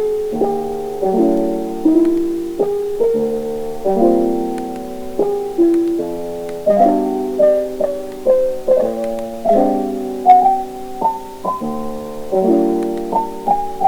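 Background music: piano chords struck at a fairly even pace, each fading away, with a melody line moving above them.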